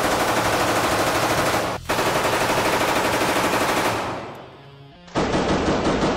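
Thompson submachine gun firing on full auto, a rapid, even string of shots in long bursts. The fire stops about four seconds in, dying away into echo, and starts again about a second later.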